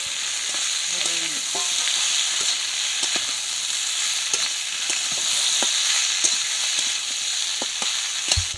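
Okra and potatoes sizzling steadily in hot oil in a metal kadai, while a flat metal spatula scrapes and ticks against the pan as they are stirred. There is a dull knock near the end.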